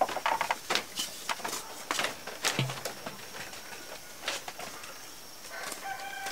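Irregular light footsteps and knocks of a carried metal pot, with a short pitched call near the end.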